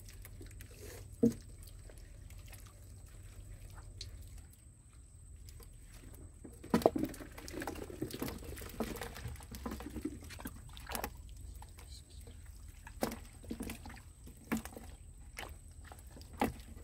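Wet squelches and slaps of soft mud as small fish are picked out of it by hand and dropped into a plastic crate: scattered short wet clicks and slaps, busiest a few seconds after the middle.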